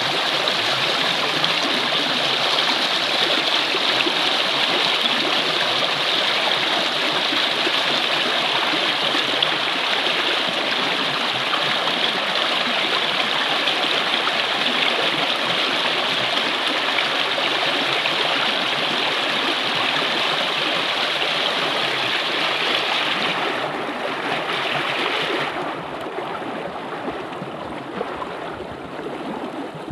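Shallow rocky stream rushing and gurgling over stones, a steady, loud wash of water that gets quieter in two steps in the last few seconds.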